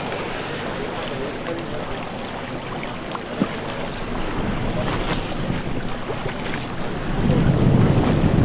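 Wind buffeting the microphone over the wash of the open sea. The wind gets louder about seven seconds in, and there is a single short knock near the middle.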